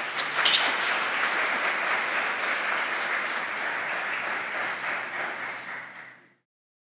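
Congregation applauding steadily, then dying away and cutting off near the end.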